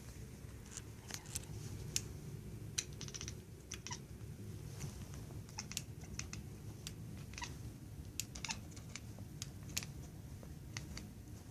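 Domestic cat making quick, irregular clicking noises with its mouth, reacting to a laser pointer dot. A few of the clicks end in a brief chirp.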